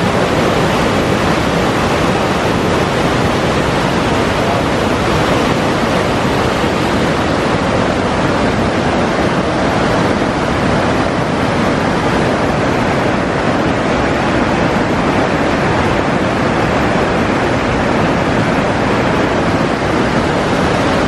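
Whitewater rapids of a fast river cascade rushing, a loud, steady, unbroken noise of churning water.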